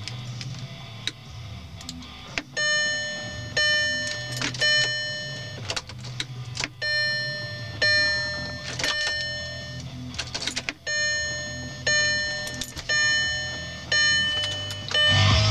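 2003 VW Passat's warning chime sounding over and over, about once a second, each tone struck and then fading. A few sharp clicks come first as the ignition key is worked.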